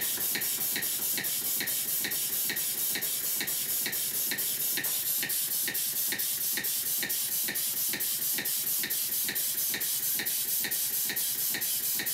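Small model steam pump running on compressed air, giving a steady, even rhythm of sharp exhaust puffs, a few a second, over a continuous hiss of air.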